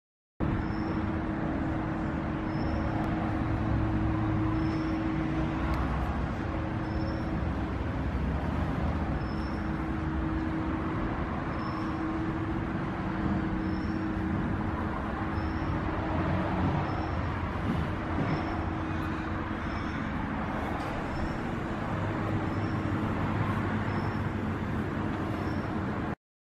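Stainless steel twin-shaft industrial shredder and bone breaker running without load, its motor and cutter shafts turning with a steady hum, and a faint high tick a little more than once a second.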